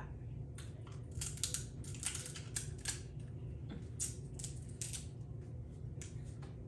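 Snow crab leg shells being cracked and picked apart close to the microphone: an irregular run of crisp clicks and cracks, thickest in the middle, over a steady low hum.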